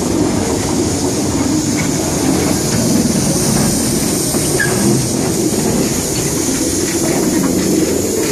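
Small steam tank locomotive and its van rolling slowly past at close range: a steady rumble of wheels on the rails with scattered clicks, over a continuous hiss of steam from the engine.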